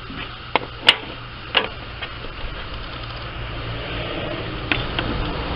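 A steady low mechanical hum, growing a little louder around halfway, with three sharp clicks in the first two seconds.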